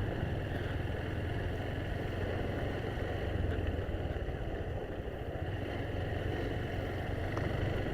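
Motorcycle engine running steadily while riding, a low, even hum.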